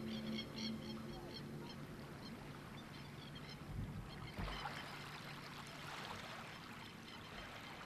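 Faint outdoor ambience. A bird gives rapid high chirps, about five a second, through the first few seconds, and a soft rushing noise swells in the middle. Low music tones fade out within the first second.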